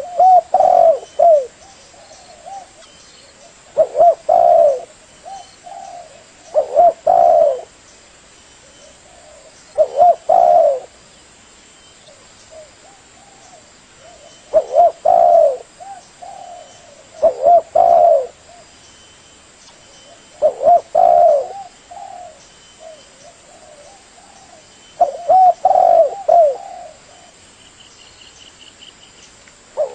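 Spotted dove (tekukur) cooing: a short phrase of several rolling coo notes, repeated about every three to four seconds.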